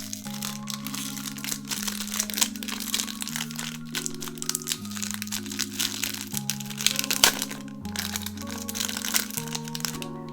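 Packaging crinkling and crackling as it is handled and opened, dense and irregular, over background music of held chords that change every second or two.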